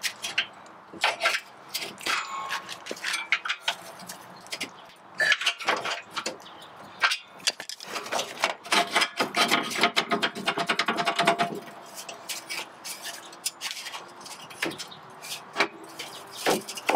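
Rusted stock Honda S2000 front bumper support bar being wrenched and wiggled free of its stuck mounts by hand: repeated metal clanks, knocks and scraping with short metallic rings. The clatter is busiest around the middle.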